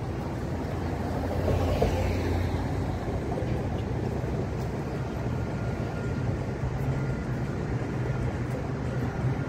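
Steady city street traffic noise from passing vehicles, with a low engine hum and a brief falling sweep about two seconds in.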